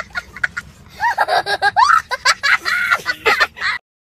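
A young child laughing hard: short high laugh bursts, then from about a second in longer squealing laughs that rise and fall in pitch. It cuts off suddenly near the end.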